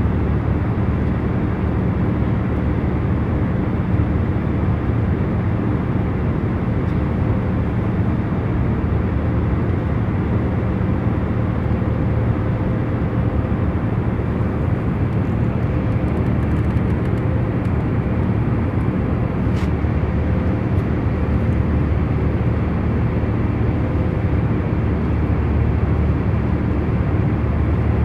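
Jet airliner cabin in cruising flight: a steady low rumble with a faint even hum. A faint click comes about twenty seconds in.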